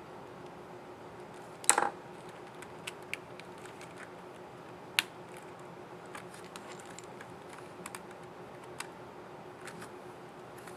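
Small plastic clicks from a Lenovo ThinkPad Yoga 260 laptop keyboard as a keycap and its scissor mechanism are handled and pressed into place. There is a loud cluster of clicks about two seconds in and a single sharp click about five seconds in.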